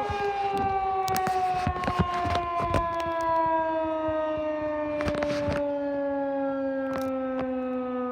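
Federal Signal 2001-SRN electromechanical tornado siren winding down at the end of a test, its tones sliding slowly and steadily lower in pitch and fading. A few short clicks and knocks come over it early on and again about five seconds in.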